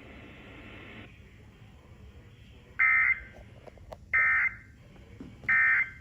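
Emergency Alert System end-of-message tones: three short, identical, buzzy digital data bursts, evenly spaced about a second and a half apart, with faint hiss between them. They mark the end of the broadcast tornado warning.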